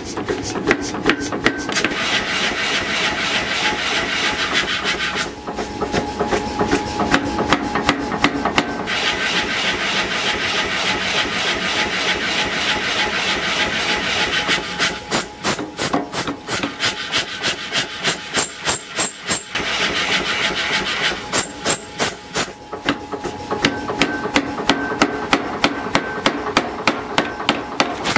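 Power hammer forging a hot billet of forge-welded scrap steel: the ram strikes the work on the die in rapid, evenly spaced blows, several a second, in long runs.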